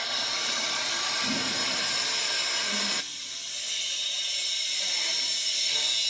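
Abrasive cutting disc grinding through metal stock, a steady high hissing grind that dips briefly about three seconds in and then comes back a little louder.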